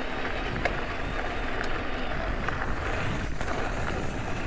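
Mountain bike rolling on a dirt trail: a steady rolling noise with a low rumble and scattered small clicks and rattles.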